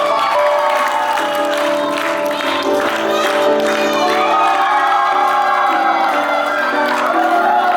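Music playing steadily with sustained notes and a melody, under an audience cheering and clapping.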